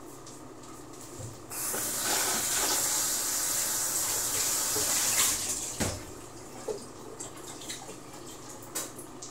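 A loud, steady hiss that starts suddenly about a second and a half in and dies away about four seconds later, followed by a single thump.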